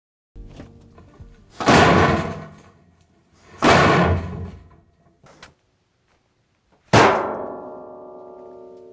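Two loud whooshing swells, a small click, then a sharp hit near the end that rings on in several tones and slowly dies away, like layered film sound effects.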